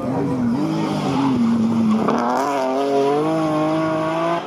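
Rally car engines running hard. The first car's revs dip and rise; then, about two seconds in, another car accelerates away with a steadily rising engine note.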